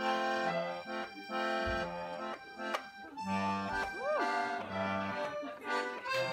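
Music playing: held chords that change every half second or so, with a short note that swoops up and back down about four seconds in.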